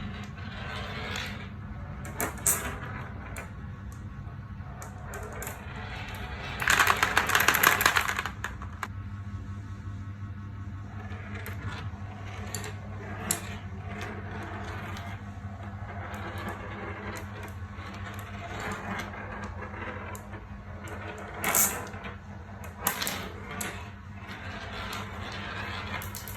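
Marbles rolling and clicking through a toy marble run: scattered sharp clicks, with a dense rapid rattle a few seconds in (the loudest part) and another cluster of clicks near the end, over a steady low hum.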